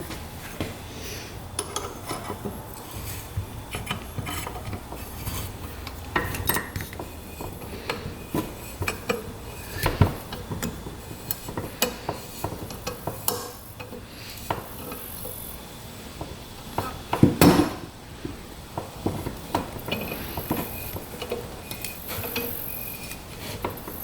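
Metal hand tools and small engine parts clinking, tapping and knocking at irregular intervals while the cylinder head of a Yamaha 225DX engine is taken apart, with a louder cluster of knocks about ten seconds in and again at about seventeen seconds.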